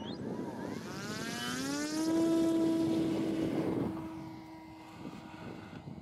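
Radio-controlled model CZ Cub tow plane's motor and propeller throttling up for an aerotow takeoff. Its pitch rises over about two seconds, then holds steady at full power, and the sound fades near the end as the plane climbs away.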